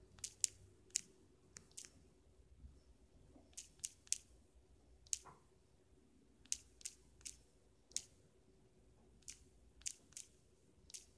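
Sharp taps of typing numbers on a smartphone's touchscreen keyboard, coming in short runs of three or four with brief pauses between, over a faint steady hum.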